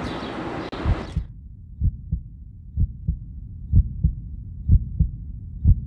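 Heartbeat sound effect: a slow, steady double thump (lub-dub) about once a second, taking over as music cuts off about a second in.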